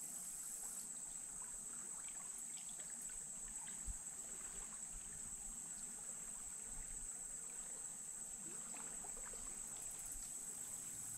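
Steady high-pitched insect chorus with faint trickling water, and a single soft thump about four seconds in.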